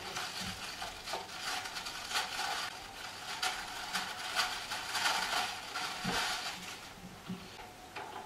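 Cardboard box packaging being handled and opened by hand: a continuous crackling rustle with many small sharp crinkles and clicks, thinning out near the end.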